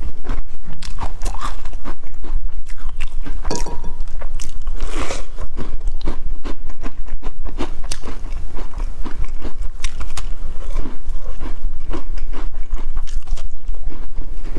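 Biting and chewing a crispy sesame-coated biscuit: a quick, uneven run of sharp crunches and crackles.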